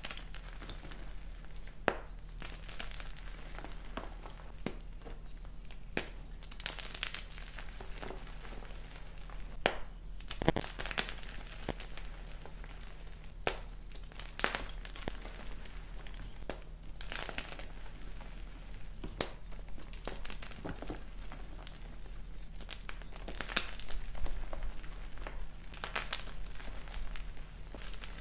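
Fresh blocks of gym chalk (magnesium carbonate) crushed and crumbled by hand into loose chalk powder: dry, crisp crunches and snaps at irregular intervals, with soft powdery crumbling between. The crunching gets busier and louder about three-quarters of the way through.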